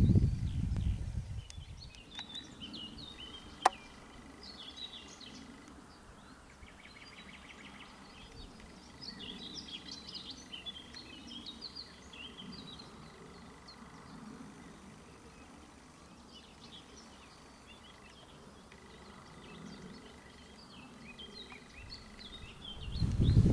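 Songbirds singing and chirping in short phrases. Wind buffets the microphone with a low rumble in the first second or so and again near the end, and there is a single sharp click about four seconds in.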